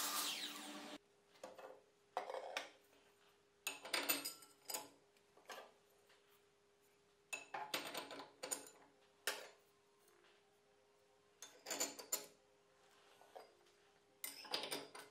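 A mitre saw blade spinning down with falling pitch for about the first second. Then irregular metal clinks, knocks and scrapes as a table saw blade, its arbor nut and flange are handled during a blade change.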